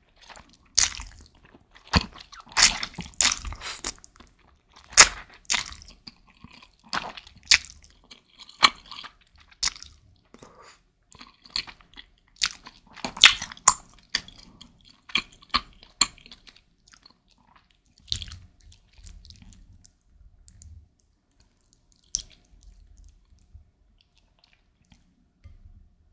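Close-miked eating sounds of a person slurping and chewing spicy instant ramen noodles: wet, sharp mouth noises in quick succession, thinning out after about sixteen seconds into occasional faint chewing.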